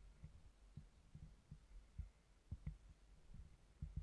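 Faint, irregular low thuds, a few each second, from a body-worn camera jostling as its wearer walks on grass, with soft footfalls.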